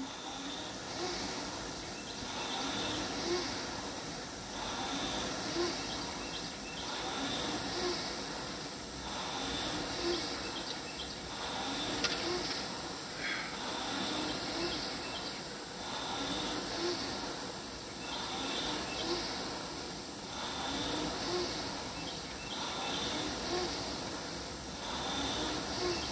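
Concept2 air rowing machine in steady use: the fan flywheel whooshes up with each pull and fades on the recovery, about one stroke every two seconds.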